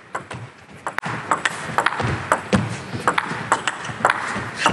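Table tennis rally: the plastic ball cracking off the rubber-faced bats and bouncing on the table in quick alternation, several sharp clicks a second.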